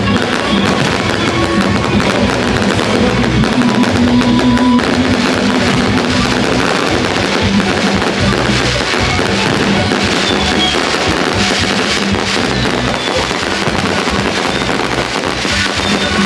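Fireworks display crackling and popping densely and continuously, with music playing along.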